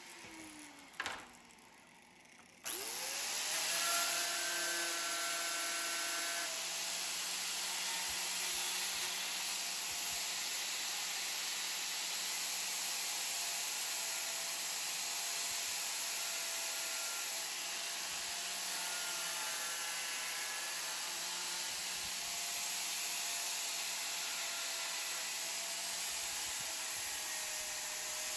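DeWALT angle grinder fitted with a sanding disc switching on about two and a half seconds in, spinning up, and running steadily as it sands the coped end of a piece of crown molding to fine-tune the profile. A dense hiss from the disc comes with a motor tone that sags slightly now and then as the disc is pressed on.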